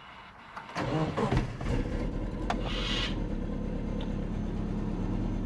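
Subaru Forester's turbocharged EJ20 flat-four cranking briefly about a second in, then catching and settling into a steady idle. This is its first start after sitting for a while, on a new battery.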